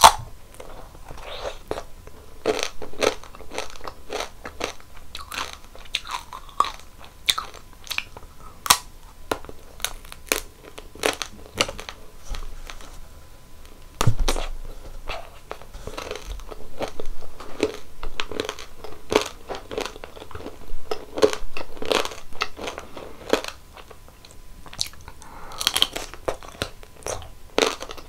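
Close-miked biting and chewing of a crunchy ice cream treat: a steady run of crisp crunches, several a second, with one heavier bite and a low thud about halfway through.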